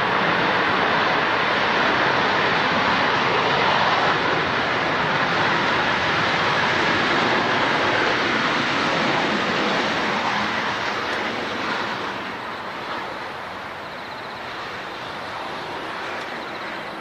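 Jet airliner's engines, a loud steady rush of noise that eases off and fades from about twelve seconds in as the aircraft moves away.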